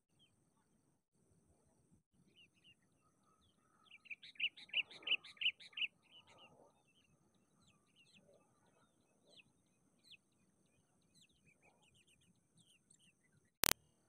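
Sooty-headed bulbuls calling: a quick run of about eight loud chirping notes about four seconds in, with scattered short chirps before and after. A single sharp click just before the end.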